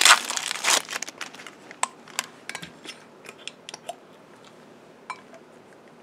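A syringe's wrapper being torn open and crinkled, loudest in the first second, followed by scattered small clicks and taps as the plastic syringe is handled.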